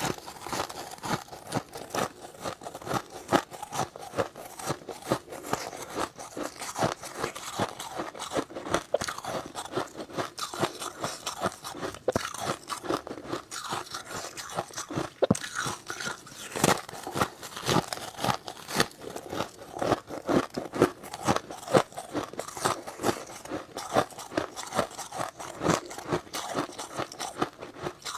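Close-up crunching and chewing of powdery freezer frost, a rapid, irregular run of crisp crunches from repeated bites.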